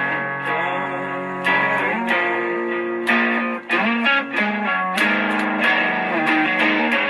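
Guitar playing a chordal passage, chords struck and left to ring, with a new strum about every second and a half.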